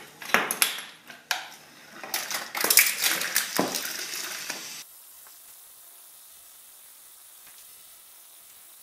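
Homemade wooden chain-reaction machine running: a quick string of clicks, knocks and rattles as its parts trip, roll and fall. It cuts off suddenly about five seconds in, leaving only a faint steady hiss.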